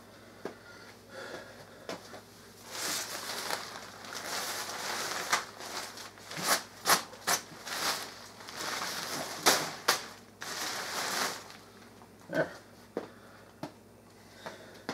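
Thin fabric of a deflated airblown inflatable snowman being lifted, shaken and bunched up by hand: rustling and crinkling in long swells from about three to eleven seconds in, with several sharp cracks of the fabric.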